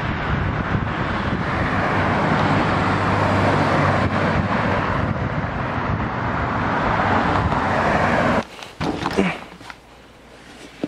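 Road traffic noise: a steady rushing of passing cars with a low hum underneath, swelling slightly and then cutting off abruptly about eight seconds in. After that come quiet handling rustles and a few light clicks.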